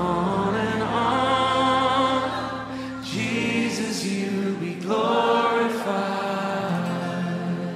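Closing bars of a worship song: held chords with sustained, wordless choir-like vocals, changing chord a few times.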